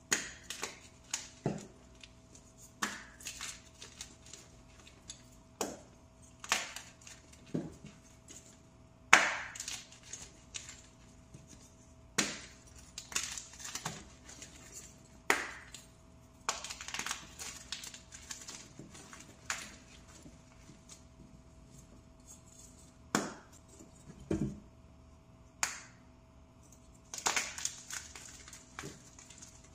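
Pressed powder blocks crushed by hand: irregular sharp crunches, some in quick clusters with short crumbling trails, the loudest about nine seconds in.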